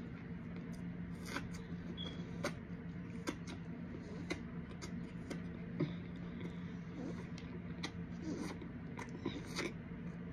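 Close-miked eating sounds: soft mouth clicks and small crunches at irregular intervals, roughly once a second, over a steady low hum.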